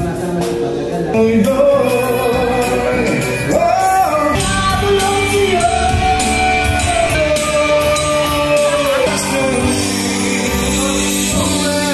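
Karaoke singing into a microphone over a backing track, with one long held note from about four to nine seconds in.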